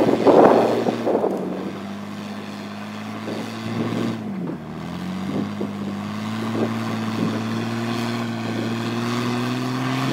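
Off-road vehicle engine running steadily at low revs. Its pitch dips briefly about four and a half seconds in, then settles and creeps slightly higher. A rushing noise fills the first second.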